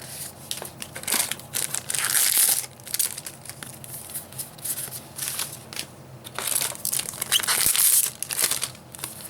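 Foil trading-card booster pack wrappers being torn open and crinkled in the hands, rustling in bursts with two louder stretches, one after about a second and one near the end.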